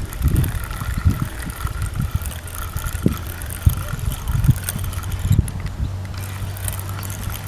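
Gusty wind buffeting the microphone in irregular low rumbles and thumps, with a steady low hum joining about halfway through.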